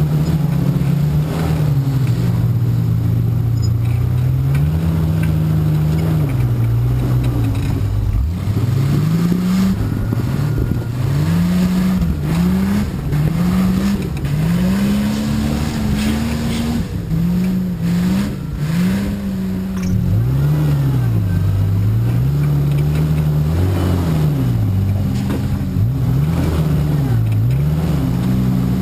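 Off-road 4x4's engine revving up and down over and over while rock crawling: quick short blips of throttle through the middle, then slower rising and falling revs near the end.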